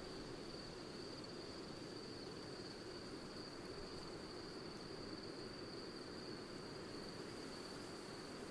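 Faint, steady outdoor ambience: an even hiss with one continuous, high-pitched whine held at a single pitch throughout.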